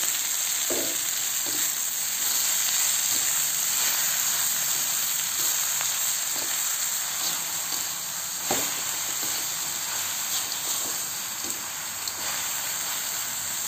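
Genjer (yellow velvetleaf) greens with green chilies and anchovies sizzling steadily in oil in a wok, just added and being stir-fried. A metal spatula scrapes and knocks against the pan, with one sharper knock a little past the middle.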